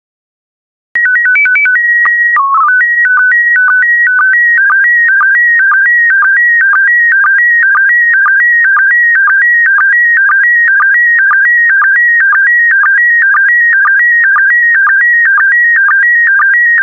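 Slow-scan TV (SSTV) signal in PD120 mode. After about a second of silence, a few quick stepped beeps and a short steady tone with a brief lower tone mark the mode header that tells the decoder the mode. The image data follows: a loud, high warbling tone that flips between two pitches, broken by a short click about twice a second as each pair of scan lines is sent.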